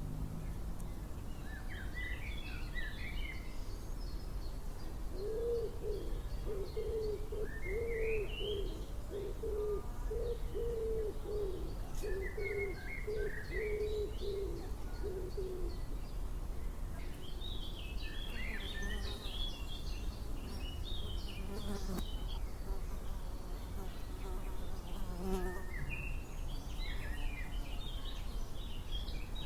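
Wild songbirds singing short, high phrases that recur every few seconds, over steady outdoor background noise. From about five seconds in, a low wavering hum runs for about ten seconds, then stops.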